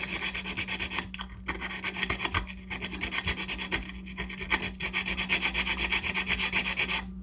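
Abrasive stilt mark stone, rough side, scraping in quick repeated strokes against a stilt mark on the glazed base of a stoneware dish, grinding the sharp kiln-stilt burr smooth. The scraping stops abruptly just before the end.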